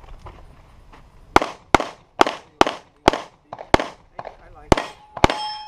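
Pistol shots in a fast string during a practical shooting course of fire: about nine shots starting about a second and a half in, mostly about half a second apart, with a longer pause before the last two. A ringing tone sets in after the last shot.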